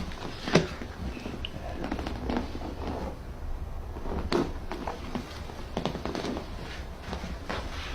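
Sharp cracks and knocks amid rustling as a person is handled and manipulated on a chiropractic table, typical of joints popping during an ankle adjustment. The loudest crack comes about half a second in, with a few more around the middle, over a steady low hum.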